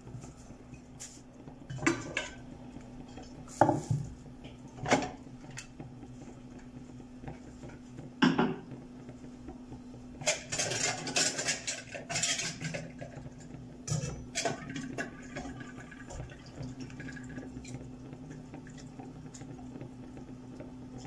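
Dishes and serving utensils clattering as food is dished up from pots onto a plate. A spoon knocks now and then against pots and crockery, busiest about halfway through, over a steady low hum.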